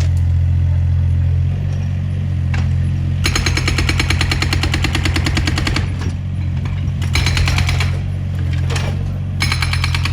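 Excavator-mounted hydraulic breaker hammering in three spells of fast, even blows, over the steady drone of the excavator's diesel engine.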